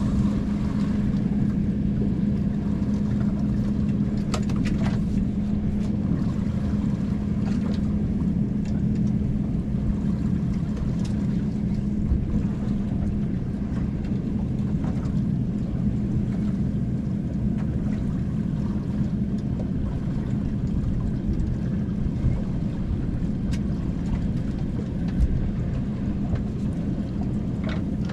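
A motorboat engine droning steadily, its hum fading away about halfway through, over a continuous low rumble of water and wind.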